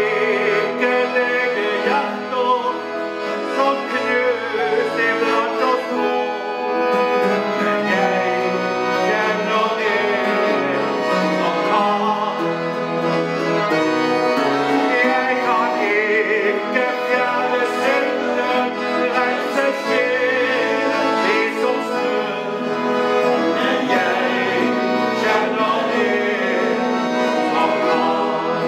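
Button accordion playing a gospel song with acoustic guitar backing, while two men sing along.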